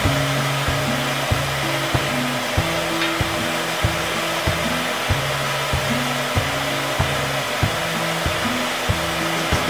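Background music with a steady beat, about three ticks every two seconds, over low sustained notes. Under it runs a steady airy blowing hiss like a hair dryer or fan.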